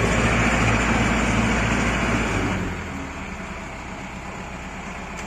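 Truck engine idling steadily with an even low pulse, close at first, then clearly quieter from about two and a half seconds in.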